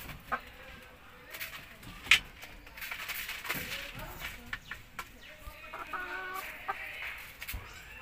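Domestic chickens, a rooster and hens, clucking and giving short calls, with a clearer pitched call a little after six seconds in. A few sharp knocks, the loudest about two seconds in.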